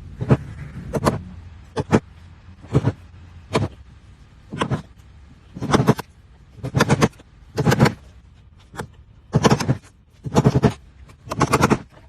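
Short, sharp hand-tool strokes on wood, roughly one a second, several coming in quick pairs or clusters.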